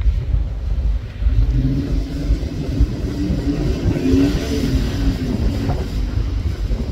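Pickup truck engine revving hard while stuck in soft sand, its wheels spinning and throwing sand. The revs climb about a second in and ease off near the end.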